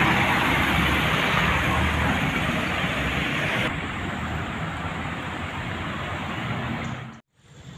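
Road traffic noise, a steady wash of passing vehicles. It drops somewhat about four seconds in and cuts out briefly near the end.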